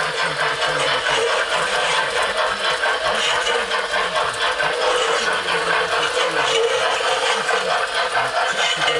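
LGB Frank S G-scale model steam locomotive running along the track: a steady whirring and rattling from its electric motor, gears and wheels on the rails.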